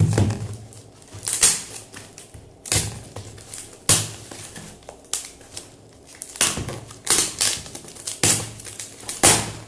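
Cardboard box being handled and its packing tape pulled and ripped off by hand: about ten short, sharp tearing and scraping noises at irregular intervals, some with a dull knock of cardboard on the table.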